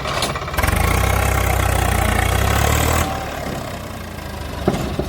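Diesel engine of a tractor or backhoe loader running. About half a second in it revs up hard and holds there for a couple of seconds, then drops back abruptly to a lower, steady run.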